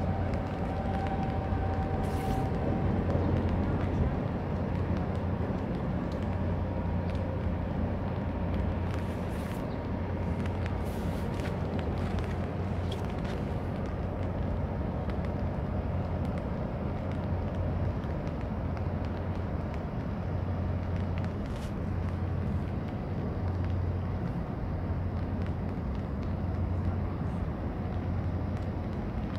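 Low, steady drone of a 1,440-TEU container feeder ship's engines as it moves slowly past across the water, with a gently pulsing hum under a wash of harbour noise. A steady thin tone sounds for the first couple of seconds.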